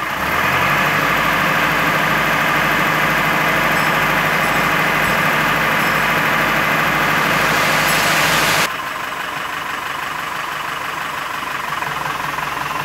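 Tata tipper truck's diesel engine held at raised revs to drive the hydraulic hoist as the dump body tips up, with a loud steady hiss and whine over the engine note. About nine seconds in the hoist sound cuts off abruptly and the engine drops back to idle.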